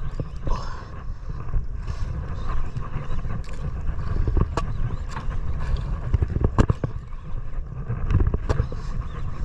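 Steady low rumble of a small fishing boat under way, with a few sharp knocks, the clearest about four and a half and six and a half seconds in, as a handline is hauled in by hand over the side.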